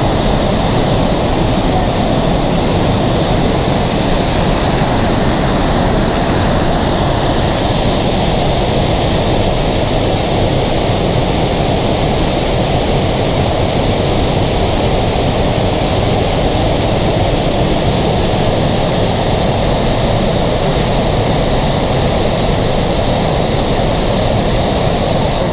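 Waterfall plunging through a narrow rock canyon: a loud, steady rush of falling and churning water.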